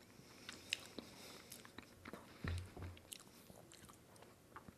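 Close-miked eating: faint wet clicks and smacks of a mouth chewing a soft dessert, with a short low thud about halfway through.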